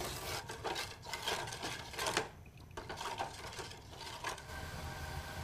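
Metal ladle stirring a thin sugary sauce in a cooking pot: irregular scrapes and light clinks of the ladle against the pot, with a brief pause about two seconds in.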